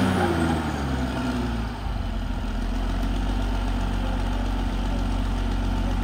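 Caterpillar D6R XL bulldozer's diesel engine dropping from working revs over the first couple of seconds, then running steadily at a low, even idle.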